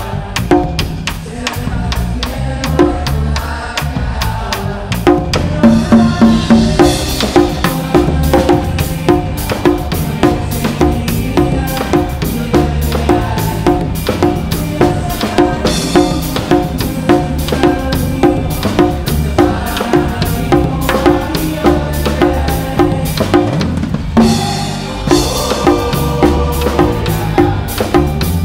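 Live band music driven by drum kit and hand drums, congas and bongos, with pitched instruments over a steady, repeating groove. The full groove comes in more strongly about five seconds in.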